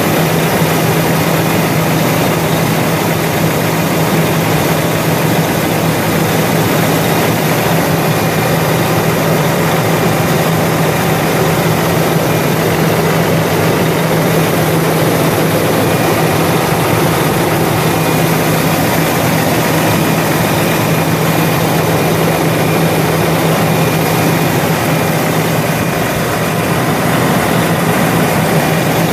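Cummins ISX 14.9-litre six-cylinder diesel engine of a 2005 International 9400i semi truck idling steadily, a constant low hum with no revving.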